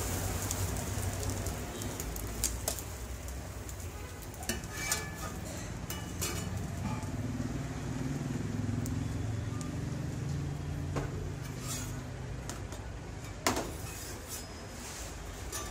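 Steel spatula clicking and scraping on a flat iron griddle while an egg omelette fries, with scattered sharp metal clicks, the loudest about thirteen seconds in, over a steady low background rumble.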